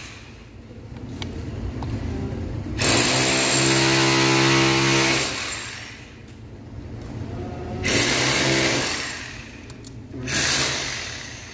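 Electric power tool running in three bursts of steady motor whine with a hiss: a long one of about two and a half seconds a few seconds in, then two shorter ones near the end.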